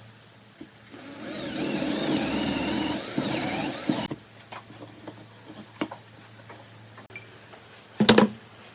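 A handheld power tool runs for about three seconds, its pitch wavering as it works, then stops. Scattered light clicks follow, and a single loud knock near the end.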